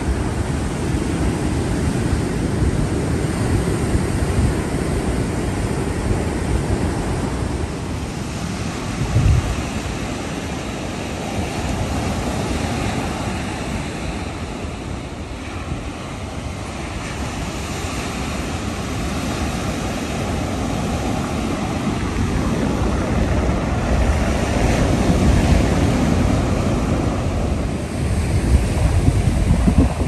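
Ocean surf breaking and washing onto a sandy beach: a continuous rush that surges slowly and grows louder in the last few seconds, with wind rumbling on the microphone.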